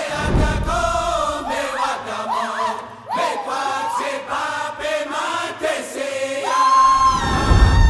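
Powwow drum group singing together in high, sliding chant phrases. The big drum sounds low at the start and again near the end, with little drumming in between.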